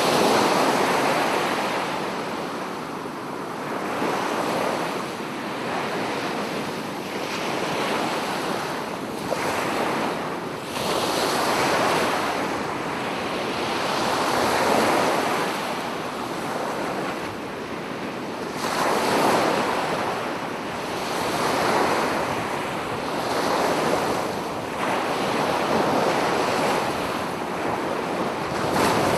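Sea waves breaking and washing up the beach, swelling and fading every few seconds, with wind buffeting the microphone.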